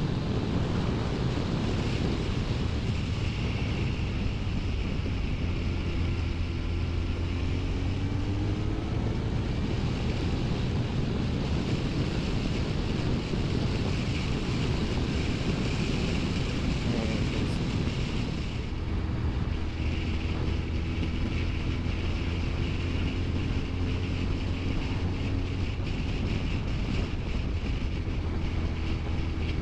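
Honda CBR1100XX Blackbird's inline-four engine running at a steady road speed, with wind rushing over the microphone. The engine note shifts slightly a few times, and the wind rush dips for a moment about two-thirds of the way in.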